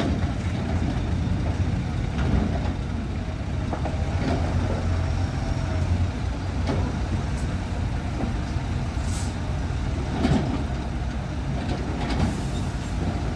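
Heavy diesel engine running steadily, with scattered clanks, a short hiss of air about nine seconds in and another near the end.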